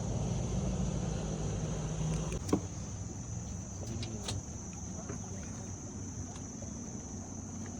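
A boat's outboard motor running, then throttled back about two and a half seconds in, leaving a lower rumble. Under it, a steady high-pitched insect drone carries on, typical of cicadas in the mangroves, with a few small knocks.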